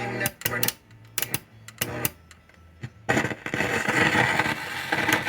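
Arvin 30R58 radio's sound cutting in and out in short broken fragments, then from about three seconds in a couple of seconds of loud static with audio underneath: the intermittent signal of a dirty contact.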